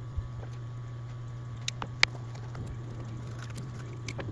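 Scattered light clicks of connecting rods, caps and bearing shells being handled on a workbench, one sharper click about two seconds in, over a steady low hum.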